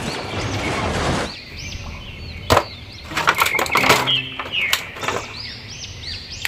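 A loud explosion-and-debris rumble from a film's action scene that cuts off about a second in. Then sharp clicks and crackles of a clear plastic blister tray and plastic action figures being handled, over repeated short high chirps.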